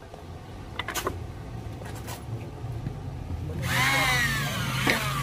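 Handheld electric drill running from about three and a half seconds in, boring into a wooden slat, its whine falling in pitch as it bites. A couple of light knocks about a second in.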